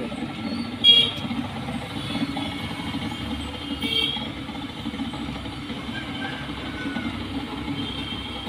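Steady low mechanical hum, like a motor running, with two short high-pitched toots about a second in and about four seconds in.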